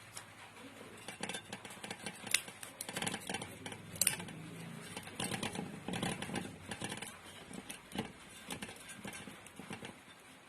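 Handling noise from hands working with coil wire and motor parts: irregular small clicks, taps and rustling, with sharper clicks about two and four seconds in.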